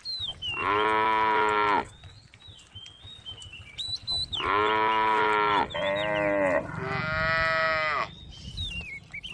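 Cows mooing: four long moos, the first near the start and three close together in the second half, as the cows call to the herd.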